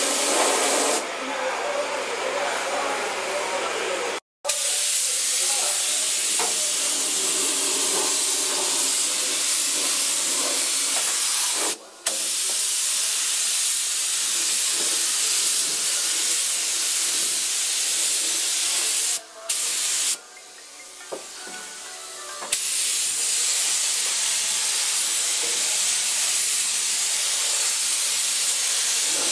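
Compressed-air gravity-feed spray gun spraying primer: a steady, loud hiss of air and atomised paint that cuts out briefly a few times.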